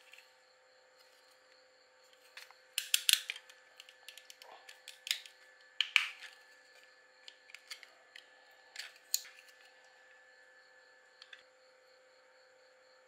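Irregular light clicks and knocks of small hard parts and hand tools being handled during a cordless drill repair, about a dozen in all with a quick cluster about three seconds in, over a faint steady hum.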